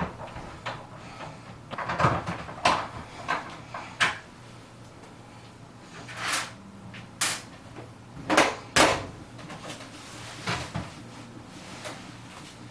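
A series of separate knocks and clatters, about nine, irregularly spaced, with a couple of short scrapes: parts and tools being handled and set down while working on a front-load washer.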